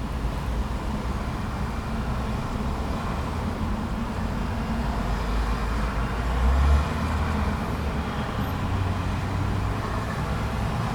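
Road traffic at a busy intersection: cars and trucks running and passing, a steady low engine rumble that swells loudest about six and a half seconds in.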